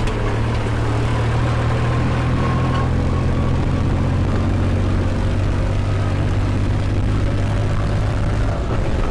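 Massey Ferguson 4WD tractor's diesel engine running at a steady speed while driving, heard from the driver's seat: an even, low drone.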